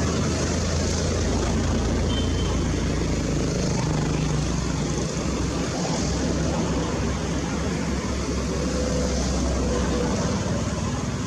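Steady low motor-vehicle engine rumble under a constant hiss.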